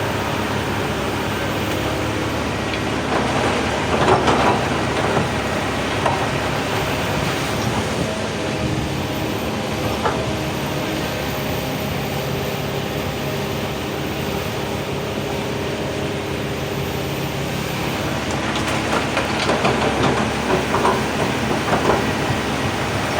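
Crawler excavator's diesel engine running steadily, with two stretches of loud clattering: about three seconds in, and again from about nineteen seconds.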